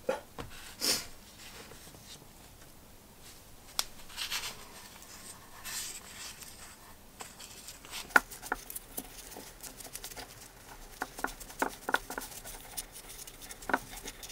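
Hand-greasing the gear in a drill's metal gearbox housing: soft rustling and rubbing of disposable gloves and grease, with scattered small clicks and taps of the housing and gear, coming thickest in the second half.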